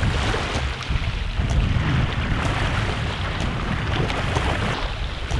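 Wind buffeting the microphone in gusts, over the hiss of small waves lapping at the shoreline.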